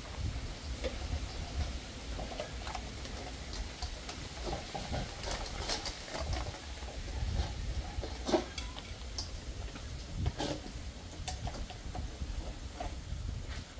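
Large dog eating dry kibble from a stainless steel bowl: irregular crisp crunches and clinks over a steady low rumble of wind.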